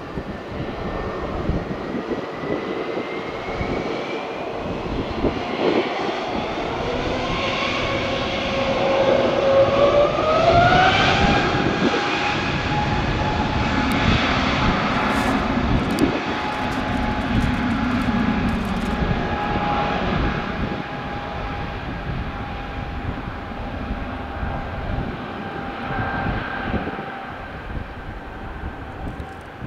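Airbus A320neo's CFM LEAP-1A turbofans spooling up to takeoff thrust. A whine rises in pitch from about seven to eleven seconds in, then holds steady over the engine noise as the airliner accelerates down the runway.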